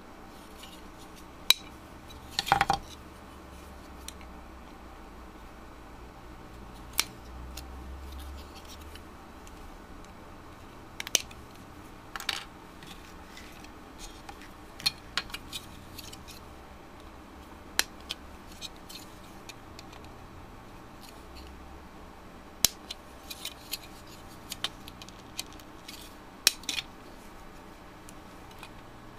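Irregular sharp clicks and snaps of hard plastic kit parts being trimmed from their sprue with side cutters and a craft knife, some in quick little clusters, over a faint steady hum.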